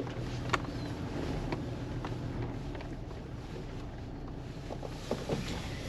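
Vehicle engine and road noise heard from inside the cabin while driving, a steady low hum with a few light clicks.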